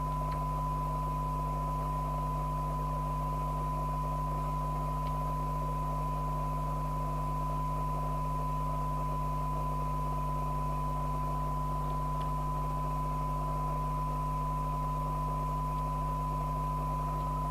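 Steady test tone from a Rotel RVC240 FM CB radio's receiver, demodulating the modulated signal from a signal generator during IF alignment, over a low mains-type hum and faint hiss. The tone holds at one pitch and level throughout.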